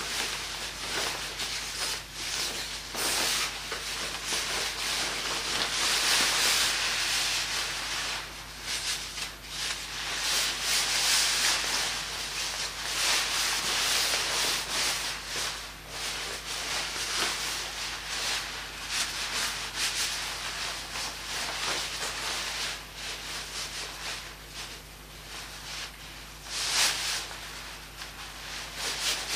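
Fire in a stove burning nylon fabric on the grate, a dense hiss full of small crackles that swells and fades several times.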